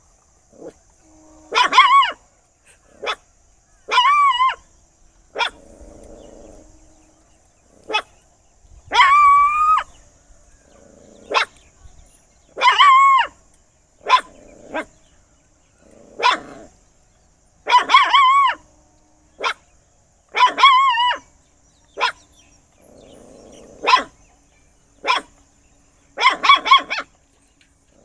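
A dog barking loudly and repeatedly in an irregular series. Drawn-out, pitched barks about half a second to a second long are mixed with short, sharp single barks, coming every second or two.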